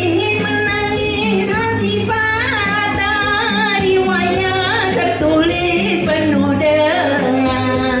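A woman singing solo into a microphone over instrumental accompaniment with a steady bass line, her held notes wavering in pitch.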